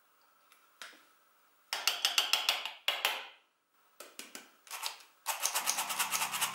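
Hand-squeezed stainless steel flour sifter being worked, its handle and agitator mechanism clicking rapidly in three bursts as flour sifts through the mesh into a bowl.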